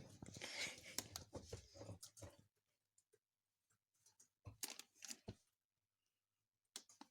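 Cat nosing into a plastic packet of corn sticks, the packaging crinkling and rustling busily for about two and a half seconds, then a few brief, faint rustles.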